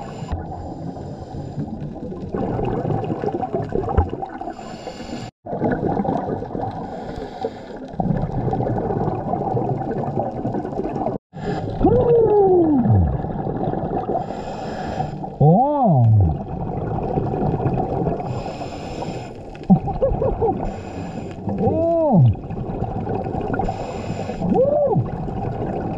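Scuba diver breathing through a regulator underwater: a short hiss on each inhale every few seconds, and a bubbling rumble on each exhale. In the second half, several short tones swoop up and then down in pitch. The sound cuts out briefly twice.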